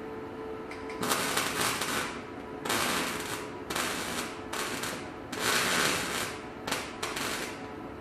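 Welding on a car exhaust: six or seven short bursts of crackling arc noise, each up to about a second long, starting about a second in, over a steady hum.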